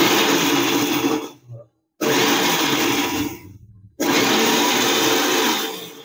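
Electric mixer grinder with a small stainless steel jar run in three short pulses, each about a second and a half, crushing dried red chillies. Each burst starts abruptly and tapers off as the motor is switched off and spins down.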